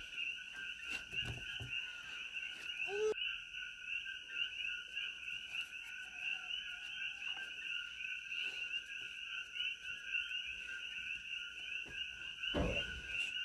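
Dense night chorus of coqui frogs: many overlapping two-note calls blend into a steady, shrill chirping din. A soft low thump comes near the end.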